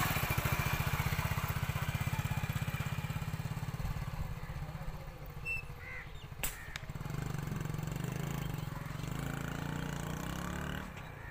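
Motorcycle engine running close by with a fast, even putter that fades about four seconds in. A single sharp click follows, then an engine hum comes back for the last few seconds.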